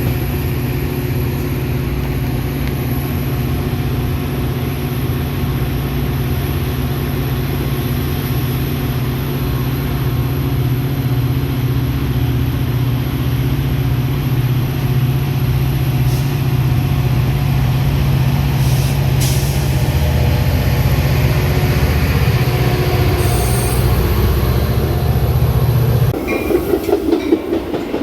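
Metra commuter train's diesel locomotive running with a steady low hum that slowly grows louder. About 26 seconds in the hum stops abruptly and a rhythmic clatter of rail cars takes over.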